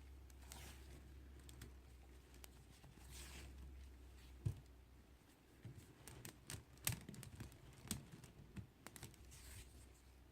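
Faint handling sounds as fabric fringe strips are tied onto a plastic pony-bead kandi hood: soft rustling over a low hum, then scattered light clicks and taps from about halfway through.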